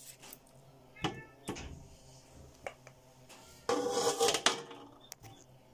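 Raw trotters knocking against a large metal basin as they are handled: two short knocks about a second in, then a louder clatter with a brief metallic ring near four seconds as they are dropped onto the pile.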